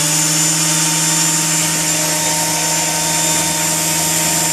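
Walkera V120D02 micro RC helicopter running steadily while held in the hand: a high whine from its stock 005 motor and gears over the hum of the main rotor blades, holding a steady head speed of about 4,100 rpm.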